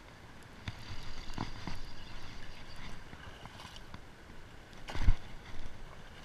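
Close splashing and rustling at the water's edge, with several small knocks and one loud thump about five seconds in, as the camera is handled or bumped.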